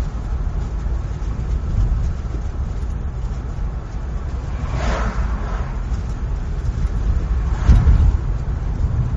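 Steady low road and tyre rumble of a car being driven, with two other vehicles swelling past and fading, about five seconds in and again near the end.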